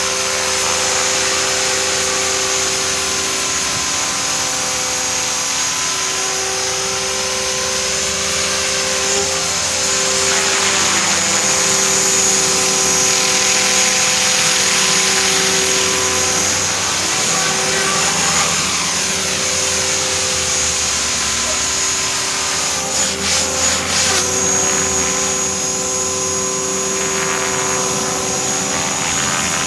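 CopterX CX500 electric 500-size RC helicopter in flight: its 1600kv brushless motor whines steadily under the buzz of the main and tail rotors. The sound gets a little louder in the middle as the helicopter flies overhead, and it wavers in a few quick pulses about three-quarters of the way through.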